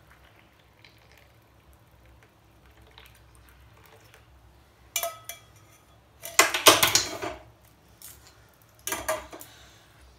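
Stainless-steel saucepan and metal tea strainer clinking and clattering on a stone counter as they are handled and put down after straining tea into a cup. The first half is faint. Then comes a short clatter about halfway, a longer, louder one a little later, and another near the end.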